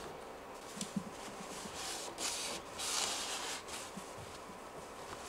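Greased blue paper shop towel rubbed along a Creality K1's upper linear rod as it is greased: a run of soft, hissing wiping strokes.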